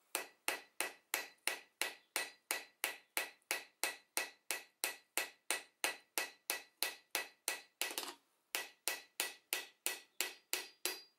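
Hammer striking a steel chainsaw bar on an anvil in light, quick, even blows, about three a second, each with a short metallic ring, with a brief pause about eight seconds in. The bar's rails are being hammered to close up a worn, over-wide chain groove that lets the chain play sideways.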